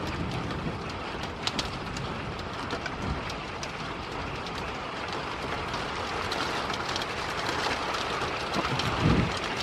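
Steady rushing noise of storm wind and rain, with a few faint ticks scattered through it.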